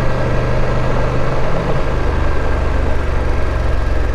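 BMW F850GS motorcycle's parallel-twin engine running steadily while riding, under a steady rushing of wind and road noise.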